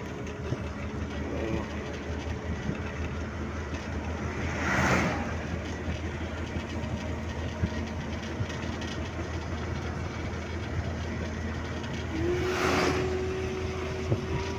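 Steady engine and road rumble of a moving vehicle heard from inside it. Two brief rushing whooshes, about five seconds in and near the end, are other vehicles passing close by. A steady humming tone joins about twelve seconds in.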